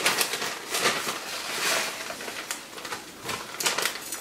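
Thick mole sauce simmering in an enamelled cast-iron pot, its bubbles popping irregularly in soft clicks and pops.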